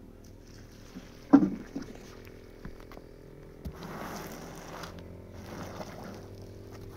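A metal bucket set down on the mud roof with one loud knock just over a second in, then two scratchy strokes of a push broom spreading liquid tar across the roof surface.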